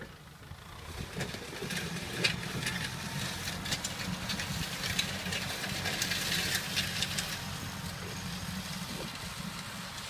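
Farm tractor engine running steadily under load as it pulls a disc harrow over dry ground, with frequent clanks and rattles from the harrow. It grows louder over the first two seconds as the tractor comes closer.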